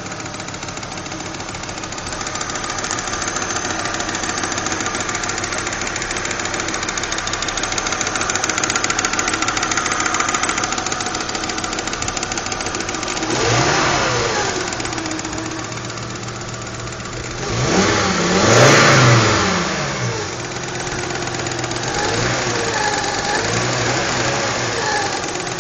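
Volvo 850 GLT's 20-valve five-cylinder engine idling with a rapid ticking, revved briefly about halfway through, again harder a few seconds later, and with small blips near the end. The owner calls the tick horrific and does not know its cause.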